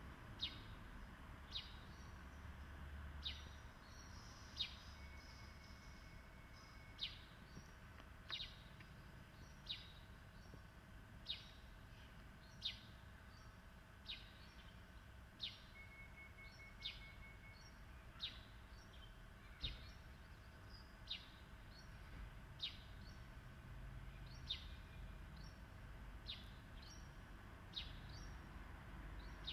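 A bird repeating a short, sharp downward chirp about every second and a half, over a faint steady hum.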